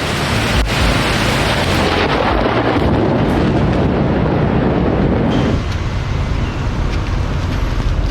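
Steady rain with a deep low rumble underneath. The hiss thins out suddenly about five and a half seconds in.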